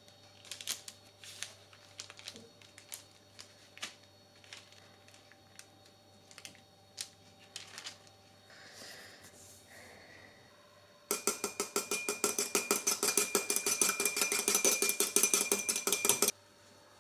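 Kitchen utensil beating fast and evenly against a bowl, a dense clatter of about five seconds that starts suddenly partway through and stops abruptly. Before it, scattered light clicks and taps of kitchen work.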